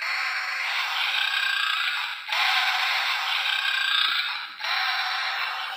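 A sound-making toy lion playing a recorded lion roar through its tiny speaker, thin with no low end, in three roughly two-second goes with short breaks about two and four and a half seconds in.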